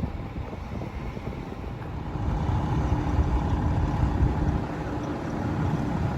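A motor vehicle engine running, louder from about two seconds in with a steady hum, over wind noise on the microphone.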